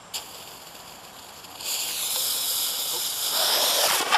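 Homemade fuse rocket, made of fuse wrapped in aluminium foil and electrical tape, firing with a loud high hiss. The hiss starts about a second and a half in, grows stronger and cuts off suddenly about two and a half seconds later. A short sharp click comes just at the start.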